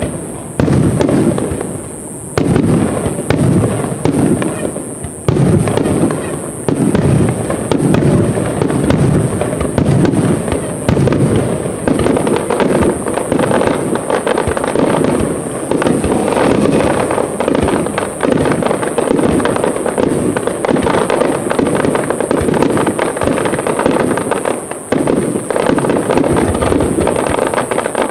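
Aerial fireworks shells bursting: a few separate booms at first, then from about five seconds in a dense barrage of overlapping bangs and crackles merging into a continuous rumble.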